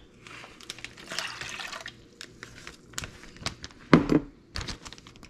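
Salt brine splashing and sloshing in a jar for about two seconds, followed by a few light clicks and a single thump just before four seconds in.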